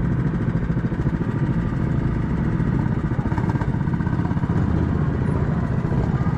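Small engine of a zebra-striped ride-on safari car idling steadily, heard up close from its driver's seat.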